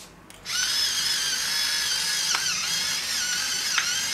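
Electric pepper mill grinding peppercorns: a steady small-motor whine that starts about half a second in, its pitch wavering slightly as it grinds.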